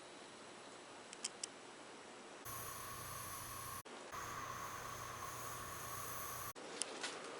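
Ceiling fans running, heard in short spliced clips. There is a faint steady hum with a couple of light clicks, then a louder motor hum for a few seconds that cuts in and out abruptly, then fainter hum with another click or two.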